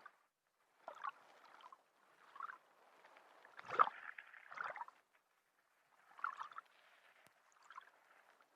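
Faint underwater water sounds: gurgling and sloshing in short irregular bursts, about six of them with near-quiet gaps between, the strongest about four seconds in.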